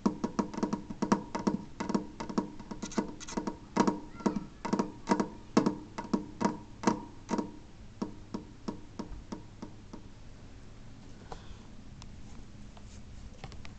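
Fingertips tapping on the glass wall of a terrarium: quick, irregular taps, about three a second, each with a short glassy ring, stopping about seven seconds in.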